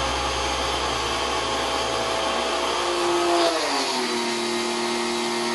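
Electric pressure washer running steadily, its motor pitch dropping about three and a half seconds in as the spray gun fires a jet of water onto a window screen.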